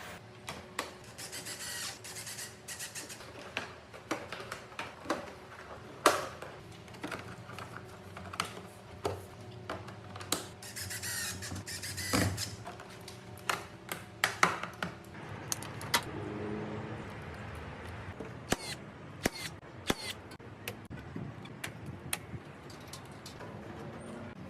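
Hands-on installation work: irregular clicks and knocks of tools and parts being handled, with a sharp knock about six seconds in and another about twelve, and stretches of scraping noise.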